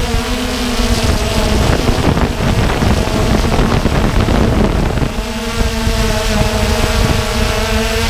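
Walkera Tali H500 hexacopter drone's electric motors and propellers whirring in flight, a steady multi-note hum heard from the onboard camera, with wind buffeting the microphone.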